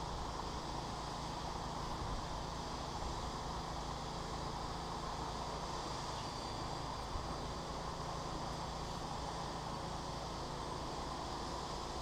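Steady hum of distant road traffic, with a faint even hiss and one small tick about seven seconds in.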